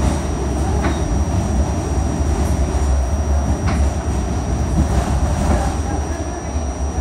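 Inside an R68A subway car running on the rails: a steady, loud rumble of wheels and car body, with a thin steady high whine and two sharp clicks about one and four seconds in. The rumble eases a little near the end as the train comes alongside a station platform.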